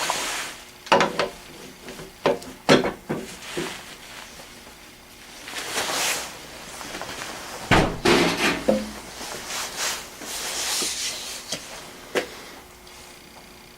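Hands working on a mixer's number 12 attachment hub: scattered knocks and clicks of metal parts being handled and fitted, with two longer stretches of rubbing as beeswax is worked into the hub's screw and shaft.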